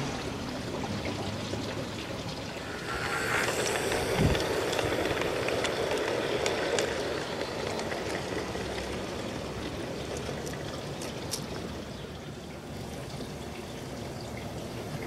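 G-scale model ore train, pulled by a small diesel switcher, rolling along garden railway track with a steady hiss and scattered light clicks of wheels over the rails, growing louder for a few seconds as the cars pass close by. A single low thump about four seconds in.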